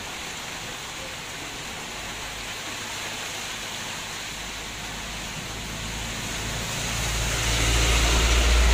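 Steady hiss of rain falling on leaves and the ground. From about six seconds in, a vehicle coming along the wet road swells into a louder rumble and tyre rush, loudest near the end.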